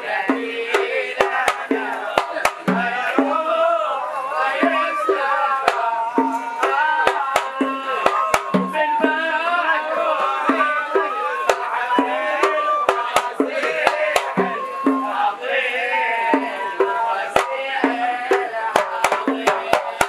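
Zarbadi: Hadrami religious song, men's voices singing a qasida over frame drums and small hand drums beating a steady, quick rhythm with sharp slaps.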